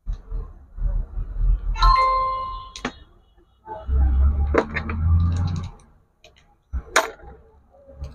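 Handling of the die grinder set's metal accessories: knocks, rubbing and clicks. About two seconds in, a metal piece clinks and rings briefly.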